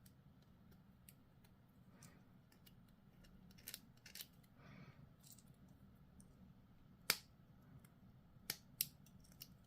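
Faint scraping and a few sharp clicks of a hobby knife working on a small miniature part, cleaning off mould lines and injection points in place of a proper scraping tool.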